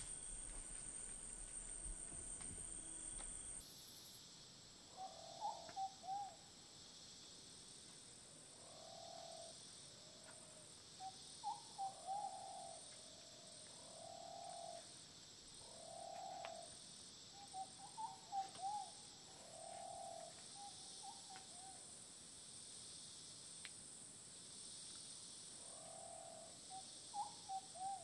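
Rainforest ambience: an animal calls in short clusters of arching notes every couple of seconds, over a faint, pulsing insect hiss. The first few seconds hold a different insect chirr that cuts off suddenly.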